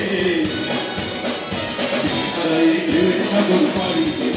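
A group of men singing a song together into microphones, backed by a live band of electric guitars, keyboard and drums keeping a steady beat.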